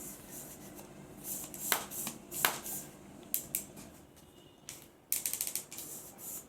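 Plastic soft-bullet toy pistol clicking and snapping as it is worked and fired: several sharp clicks spaced apart, then a quick rattling run of clicks about five seconds in.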